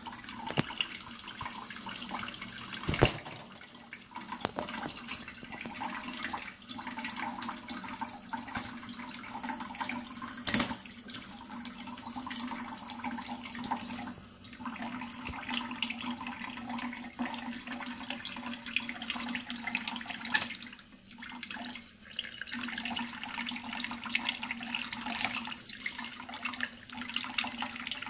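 Kitchen faucet running in a thin stream, water splashing onto a plate and over a bathing sun conure. A few sharp knocks stand out, about 3 and 10 seconds in.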